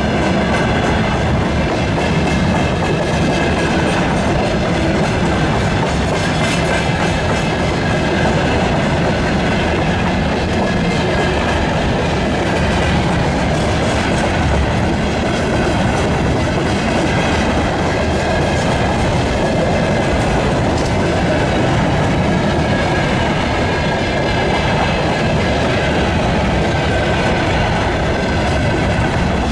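Freight train of covered hopper wagons rolling past at close range: a loud, steady rolling noise of steel wheels on the rails.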